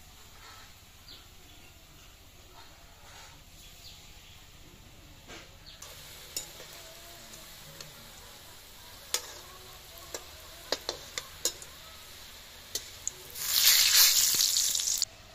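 Palm-fruit fritters deep-frying in hot oil in an iron kadai, with a faint steady sizzle and a steel slotted spoon clicking against the pan several times as the fritters are turned. Near the end a loud burst of sizzling lasts about two seconds and cuts off suddenly.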